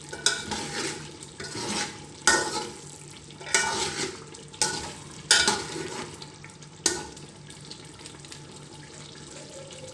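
A spoon stirring and scraping chicken and tomato masala in a cooking pot, in about seven sharp strokes over the first seven seconds. The masala sizzles underneath, and only the low sizzle is left near the end.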